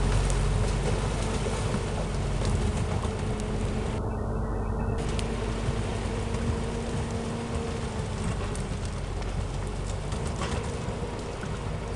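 Valtra forestry tractor's diesel engine pulling steadily at a constant pitch as it hauls a loaded log trailer through mud, gradually fading as it moves away. A few sharp clicks occur along the way.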